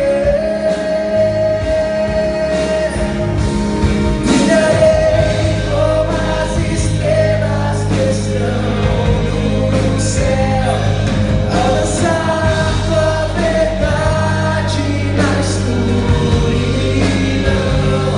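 Live worship band playing a Portuguese-language worship song: a woman sings the lead melody over electric guitar, bass, drums and keyboard.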